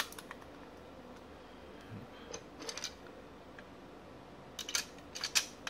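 Light plastic clicks and taps as a Raspberry Pi 3 circuit board is handled and fitted into a blue plastic case: a few soft clicks around the middle and a quick cluster of clicks near the end.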